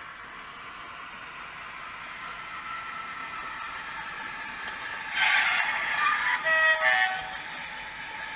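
Sound decoder of an OO gauge DCC model diesel locomotive giving a burst of hiss, then a short two-note horn, over the steady sound of the layout running.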